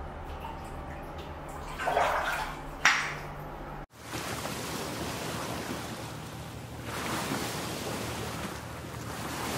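Whirlpool bathtub with its jets running: churning water over a steady motor hum, with a louder surge of water about two seconds in and a sharp click near three seconds. After a cut about four seconds in, a steady rushing outdoor noise.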